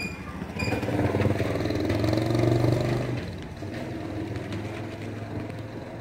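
A motor vehicle engine passes by, growing louder over about two seconds and then fading back into steady street hum.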